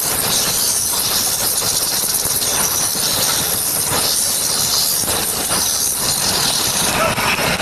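Wood lathe running, with a steady hiss from the tool working the spinning wood; the hiss drops lower in pitch near the end.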